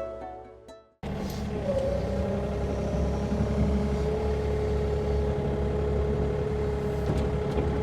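Plucked-string music fades out, then about a second in a cut to a Sany mini excavator's diesel engine running steadily, with a steady whine over it.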